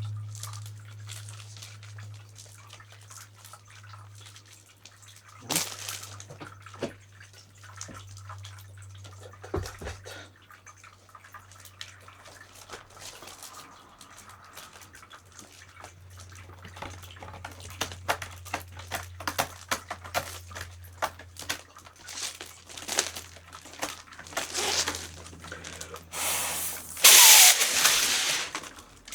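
Handling of Halloween decorations: scattered clicks and crinkles of plastic being handled over a steady low hum. Near the end, a loud hiss lasting about a second and a half.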